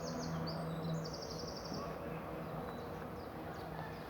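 Small songbirds singing in woodland: two high, rapid trills in the first two seconds, then scattered short chirps, over a steady low hum and background hiss.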